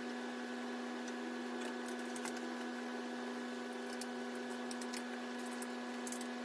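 A steady hum with a few faint ticks over it.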